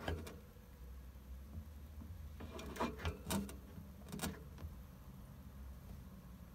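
A hamster scrabbling on a terracotta pot and the cage: short scratchy clicks in small clusters, most of them around three seconds in and again just after four.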